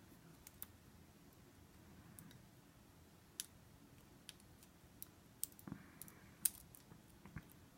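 Faint, irregular clicks of a metal lock pick working the wafers of a cheap single-sided wafer lock under tension.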